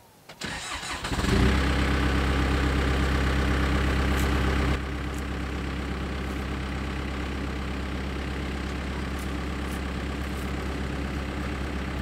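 Backhoe loader's diesel engine starting up about a second in and running loud and steady, then dropping to a quieter, even idle about five seconds in.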